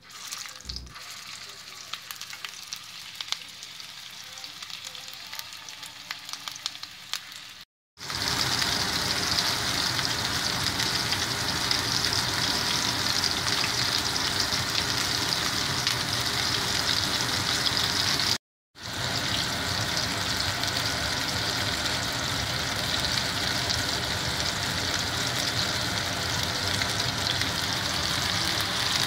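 Raw meatballs frying in hot oil in a cast-iron skillet: a steady sizzle with scattered pops. It is lighter at first, as the first meatballs go into the oil, then fuller and louder after a break about 8 seconds in, when the pan is full. A second short break comes near the middle.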